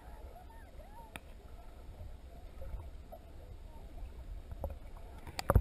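Muffled underwater noise from a camera submerged in a spring: a steady low rumble of water moving around the housing, with a few sharp clicks or knocks near the end.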